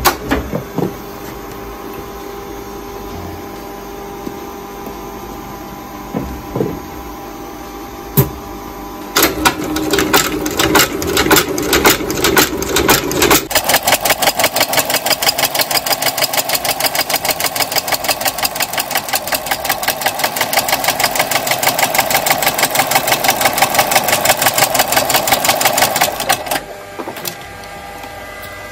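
Pedersen outsole stitching machine: its motor hums, a few single strokes click, then it stitches the boot's sole with a fast, even clatter for about thirteen seconds and stops near the end.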